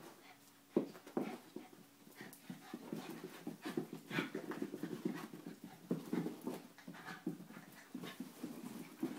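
A schnauzer and an Italian greyhound play-wrestling, making dog sounds in quick, irregular bursts with a few sharp knocks. The sounds grow busier from about two and a half seconds in.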